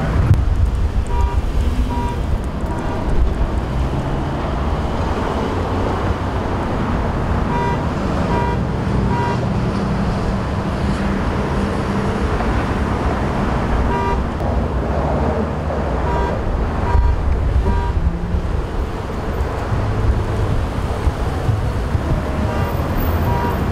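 Steady road traffic noise from cars passing and idling, with short high beeps now and then.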